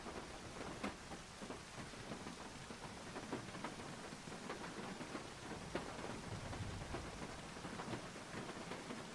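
Rain falling on a tin roof: a steady patter with many scattered, sharper drop hits.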